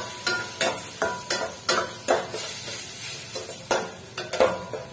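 Flat metal spatula scraping and stirring sautéed onions, tomatoes and ginger-garlic around a stainless steel pan, with a light frying sizzle. The scraping strokes come irregularly, about once or twice a second.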